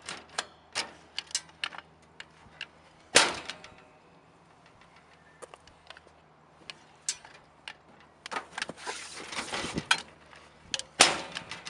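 Keys clicking and jangling at the lock of a metal Florence cluster-mailbox parcel locker, with a sharp metal clack about three seconds in. Later comes the scrape and rustle of a cardboard mailing box being pulled out of the compartment, and another clack near the end.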